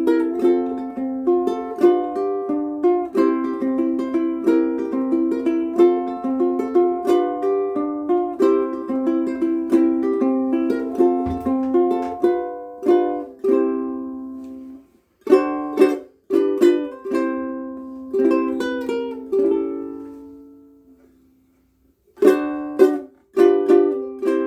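Koaloha Opio ukulele with Kamaka Black Nylon strings played solo: a steady run of plucked notes, then after about fourteen seconds a few separate chords with pauses between them, one left ringing until it fades out before two more chords near the end.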